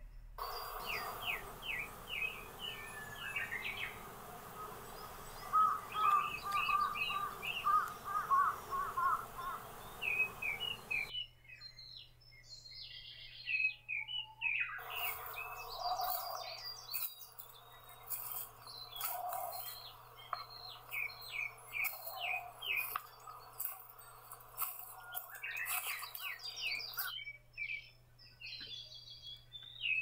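Woodland songbirds chirping and singing, several overlapping, over a light outdoor hiss. In the middle a lower call repeats about every three seconds. The background changes abruptly a few times where separate recordings are cut together.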